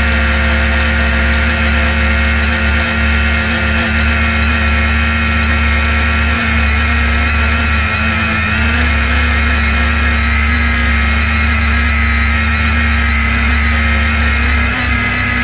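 Multirotor drone's motors and propellers whining steadily, several high tones wavering slightly over a low hum, as heard from its onboard camera.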